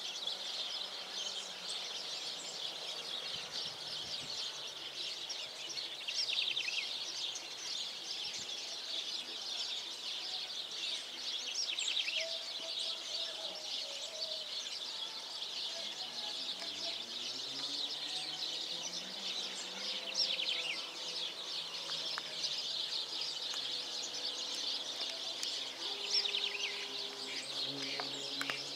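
Outdoor chorus of many small birds chirping, a dense, continuous twittering. About halfway through a low droning hum comes in, rising in pitch and then holding steady.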